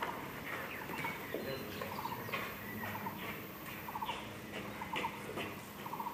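Small birds chirping over and over: short rapid trills about once a second, with higher sweeping chirps in between.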